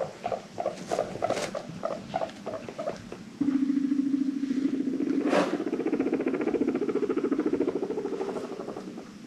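Guinea pig making a string of short low chutting sounds, then a long low buzzing rumble of very rapid pulses that rises a little in pitch partway through and fades near the end. A single sharp click comes about halfway.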